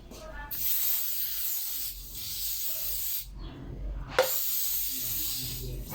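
Aerosol cooking spray hissing onto a frying pan in two long bursts, the first stopping about three seconds in and the second starting about a second later.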